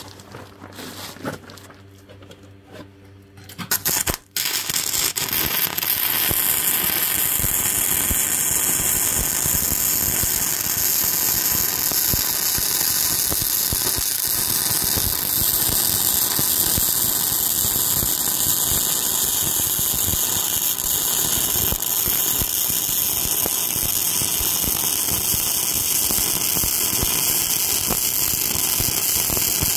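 Self-shielded flux-cored arc welding with 5/64-inch Lincoln NR-211 wire on an overhead pass. The arc strikes suddenly about four seconds in and keeps up a steady, loud crackling hiss.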